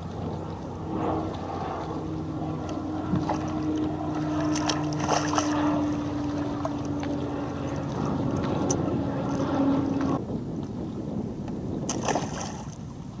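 Small catfish splashing back into the lake as it is released beside a kayak, about five seconds in, over water sloshing against the hull; a hand splashes in the water near the end. A steady low hum runs underneath until about ten seconds in.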